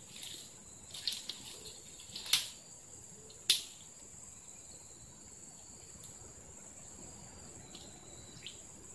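Insects keeping up a steady, high-pitched drone. A few sharp clicks and rustles come in the first few seconds, the loudest about two and a half and three and a half seconds in.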